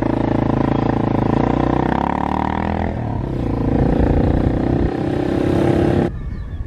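Quad bike (ATV) engine running under way on a dirt road, its note shifting about two to three seconds in. The engine sound stops abruptly about six seconds in.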